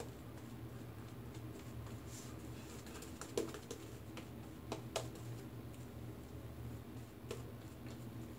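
Shaving brush working lather over the face: soft scratchy brushing with a few sharp clicks, the loudest about three and a half and five seconds in, over a low steady hum.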